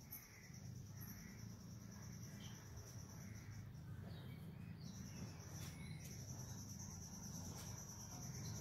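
Crickets chirping in a steady, faint high trill that drops out for about a second near the middle, over a low rumble.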